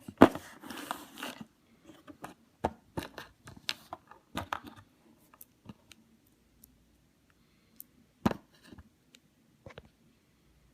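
Unboxing handling noise: a burst of rustling and crinkling packaging in the first second and a half, then scattered sharp clicks and taps of small parts being handled, with a louder knock a little after eight seconds.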